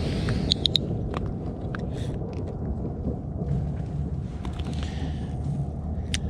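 Steady low wind rumble on the microphone, with a few light clicks from handling a spinning reel and rod, the sharpest cluster about half a second in.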